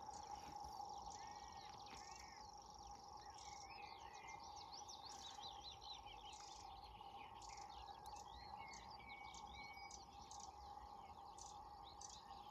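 Faint dawn birdsong: several small birds' chirps and whistles, with a thin, high, steady insect-like reeling trill in the first few seconds that is a distant grasshopper warbler's song. A steady hum sits underneath.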